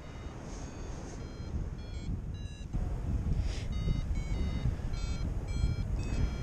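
Paragliding variometer beeping in short, rapid tones, about two to three a second: its climb tone, the sign of rising in lift. Under it, a steady rush of wind on the microphone that gets louder about three seconds in.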